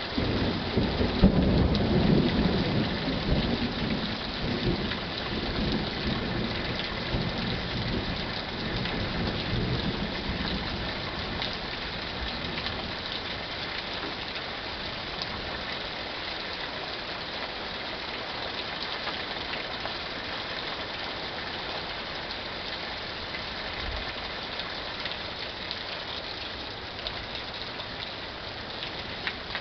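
A roll of thunder, loudest in the first few seconds and dying away over about ten seconds, over steady rain that runs throughout.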